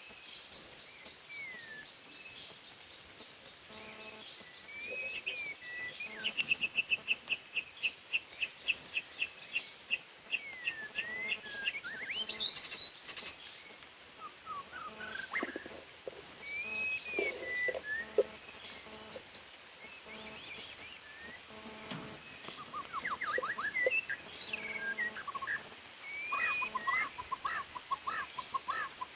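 White-rumped shama singing: varied whistled phrases and gliding notes, with a fast run of repeated notes about six seconds in and quick chattering note series near the end.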